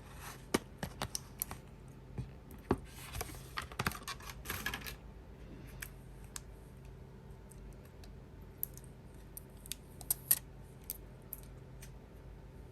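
Irregular light clicks, taps and short scrapes of small repair tools on iPhone parts, busiest in the first five seconds and again around ten seconds in.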